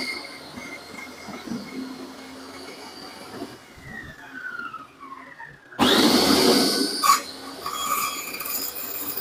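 Fixman compound miter saw's motor spinning down with a falling whine, then switched on again about six seconds in, its blade spinning up with a rising whine and then running.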